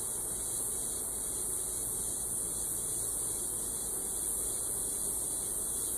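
Honey bees humming around an open hive as a frame is lifted out, under a steady high hiss.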